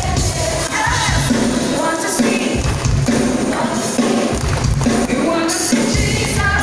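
Live worship band playing a praise song with singers, amplified over the PA.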